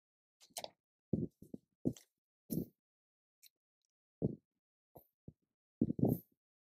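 Papers and a book being handled at a lectern and picked up by its microphone: a scattered run of short, soft knocks and thumps with faint paper rustle, the last ones close together near the end.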